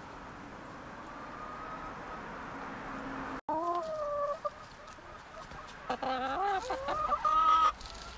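Hens clucking on a compost pile: a soft low murmur at first, then a short call, and near the end a run of louder drawn-out calls.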